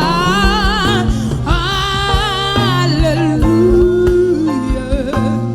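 Gospel worship music: a high voice holds long sung notes with vibrato over a steady instrumental backing.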